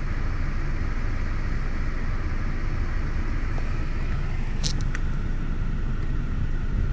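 Car in motion: a steady low rumble of engine and road noise, with two short sharp clicks a little past two-thirds of the way through.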